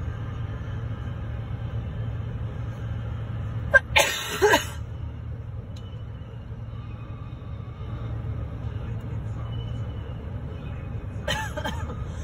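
Steady low rumble of a long intermodal freight train rolling past a grade crossing, heard from inside a stopped car. It is broken by two short loud bursts from a person in the car, one about four seconds in and one near the end.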